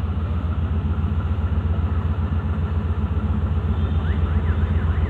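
A Pakistan Railways ZCU-30 diesel-electric locomotive's engine running with a steady, fast low throb as it hauls a passenger train out of the station.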